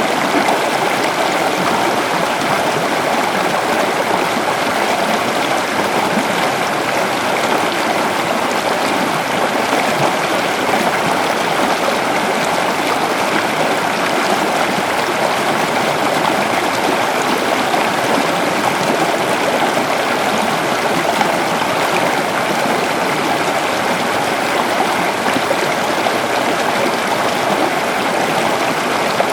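Waterfall: water falling and rushing, a steady, even rush without breaks.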